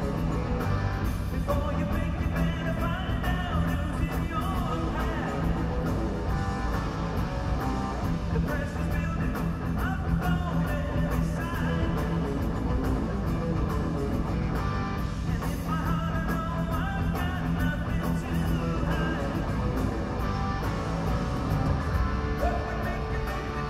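Rock band playing a song live through an arena PA, electric guitar and drums with a singing voice.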